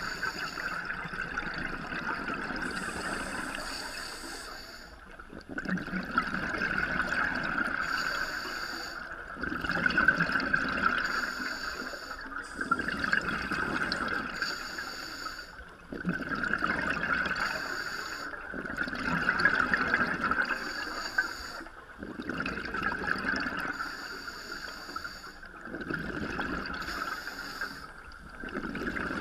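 Scuba diver's regulator breathing underwater, heard through a GoPro housing: a hiss on each inhale and a burst of bubbling on each exhale, repeating every three to four seconds.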